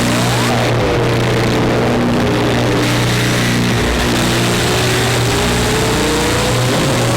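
Electronic drone-noise jam from a Bastl Kastle 1.5 and a Krackatone synth: a steady low buzzing drone under a bed of hiss, with a pitched tone that slowly climbs, sweeps sharply up and drops back down, once near the start and again near the end.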